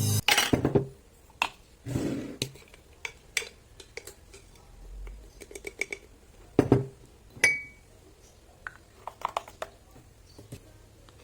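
Glassware and kitchen utensils being handled, in a string of irregular clinks, knocks and clatters. One glass clink past the middle rings briefly.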